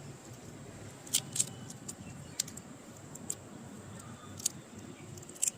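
A few scattered light clicks and taps of hand-handling, about half a dozen, over a faint steady background hiss.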